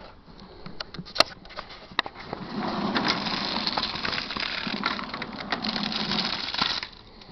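Ice cubes and meltwater dumped out of a leather briefcase onto the ground: a dense splashing clatter of ice, starting about two and a half seconds in, lasting about four seconds and stopping abruptly. A sharp click comes about a second in.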